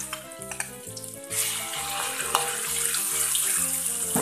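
Ground chili spice paste hits hot oil in a wok and starts to sizzle loudly about a second in, after a few clicks as it is scraped from the bowl. Background music plays throughout.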